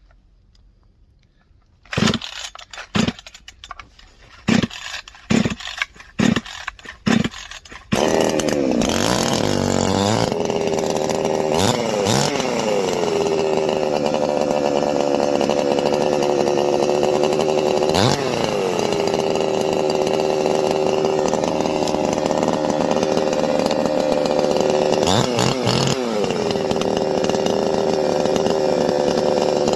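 Two-stroke Supmix gas chainsaw being cold-started: a series of pull-cord pulls over about six seconds, then the engine catches about eight seconds in and keeps running, with several brief throttle blips. The owner takes the way it ran to be lean, from the cold.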